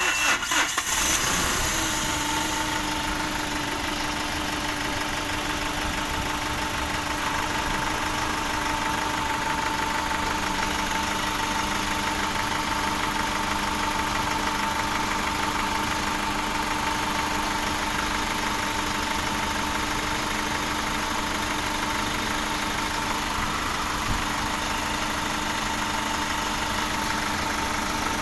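Hyundai common-rail diesel engine cranking and catching right at the start, then settling into a steady idle at about 720 rpm.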